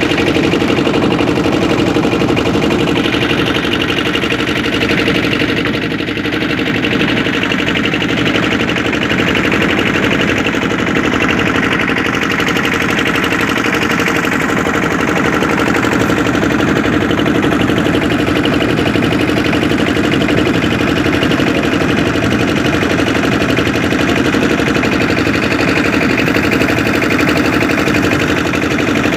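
A boat's engine running steadily at a constant speed.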